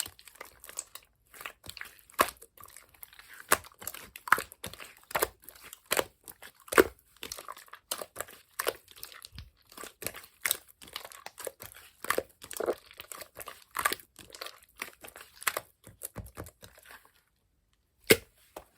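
Yellow clear slime being squished and pressed by hand, making irregular sharp pops and clicks. They stop shortly before the end, with one last pop near the end.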